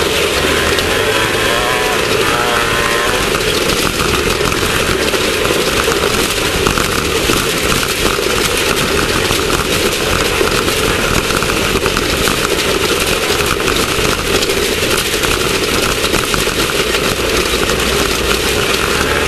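Class 1600 off-road race car's air-cooled VW 1600 flat-four engine running steadily at racing speed, mixed with a constant dense noise from the ride.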